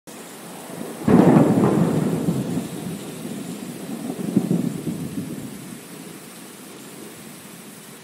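Thunder sound effect: a sudden crack about a second in that rumbles and slowly fades, swelling once more at about four seconds, over a steady rain-like hiss.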